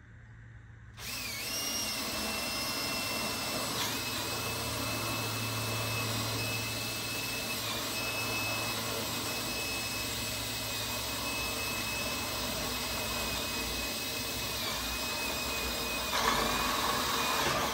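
Power drill running in one long steady stretch with a high whine, boring a pilot hole for the rail's bolts. Its pitch dips briefly a few times under load, and it gets rougher and louder near the end.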